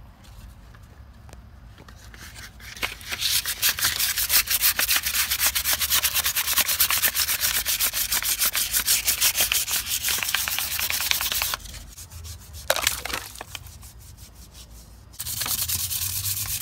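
Wet sandpaper rubbed rapidly back and forth by hand over a rusty chrome wheel rim, a fast scratchy scraping. It starts about three seconds in, stops for a few seconds past the middle, and starts again near the end.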